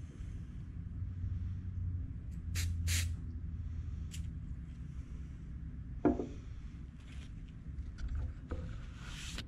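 CA glue activator sprayed from an aerosol can in two short hisses onto the glue-filled crack. About six seconds in comes a single knock, the loudest sound, and a further brief hiss follows near the end, all over a low steady hum.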